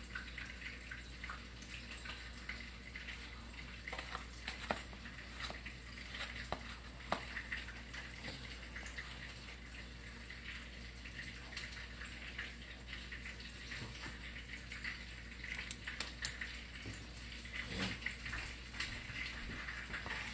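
Hands pressing and turning a piece of chicken in breadcrumbs in a plastic tray: faint crumb rustling with scattered small clicks and taps, over a low steady hum.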